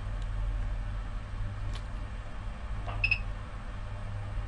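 Sunshine P-1505TD bench power supply running with a steady low hum, a few faint clicks, and a short high beep about three seconds in.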